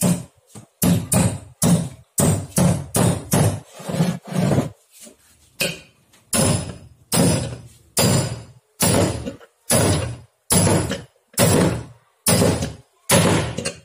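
Hammer blows driving a crankshaft bearing into its housing in an aluminium motorcycle crankcase: a long run of about twenty regular strikes, roughly one and a half a second, each ringing briefly. The bearing is going in tight.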